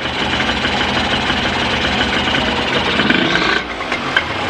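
Honda NSR250 two-stroke engine idling steadily, with a raspy sound and no abnormal noise, and a brief dip in level about three and a half seconds in.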